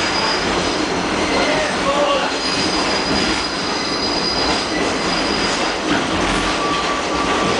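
New York City Subway R train running along the tracks, heard from inside the car: a loud steady rumble and rattle with thin, high-pitched wheel squeal, one high squeal from about two and a half to five seconds in and a lower one near the end.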